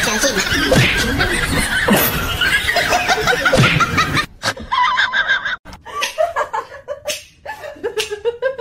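People laughing in short repeated bursts, with an abrupt break about four seconds in.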